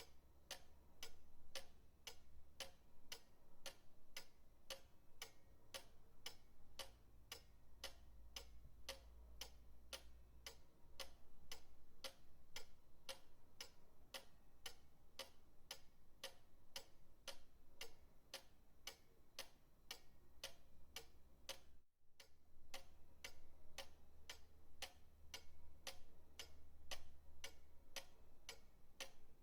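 Pendulum clock ticking steadily, about two ticks a second, over a faint low hum. There is a split-second gap about two-thirds of the way through.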